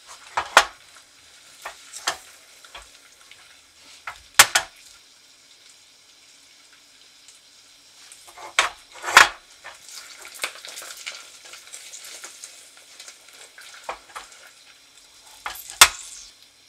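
Sugar syrup boiling hard in a stainless steel pot at about 315°F, the hard-crack stage for candy coating: a steady fizzing, crackling bubble. Several sharp knocks break in, the loudest near the end.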